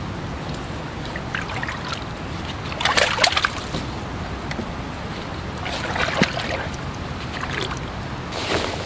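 Water splashing and sloshing in the shallows as a stringer of fish is handled and lowered into the river, with louder splashes about three and six seconds in, over a steady low background noise.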